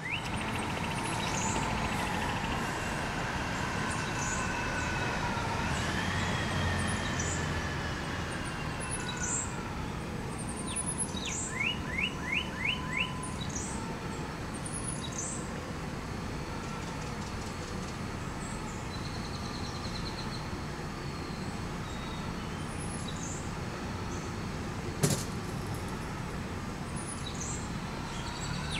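Outdoor background sound: a siren wailing, rising and falling over the first several seconds, and birds chirping throughout, with a quick run of five chirps about twelve seconds in, over a steady low rumble. A single sharp click near the end.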